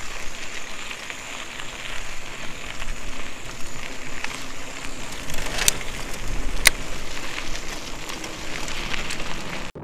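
Mountain bike rolling over a gravel road: a steady crackling crunch of tyres on loose gravel, with two sharp clicks about a second apart just past the middle.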